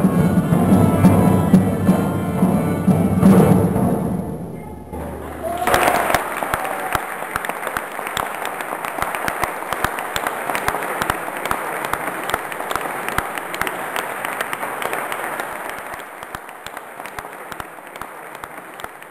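A medieval ensemble of bowed fiddle and plucked lutes plays the last notes of a piece, stopping about four to five seconds in. An audience then applauds, fading off toward the end.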